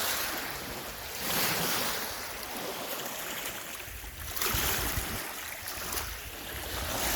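Lake Superior waves washing onto the shore, the surge swelling and ebbing about every three seconds, with some wind.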